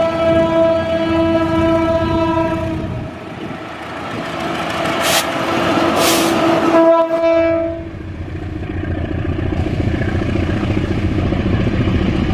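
Indonesian KAI diesel locomotive sounding its horn in two long blasts, the second ending about eight seconds in, over the running of the locomotive and train. After that a steady rumble of the diesel engine and wheels on the rails.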